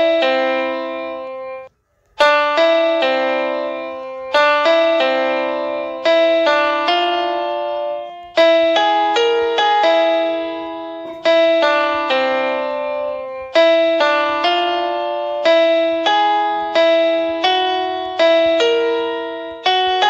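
Background music played on a piano-sounding keyboard: a melody of struck notes that each fade away, with a brief break about two seconds in.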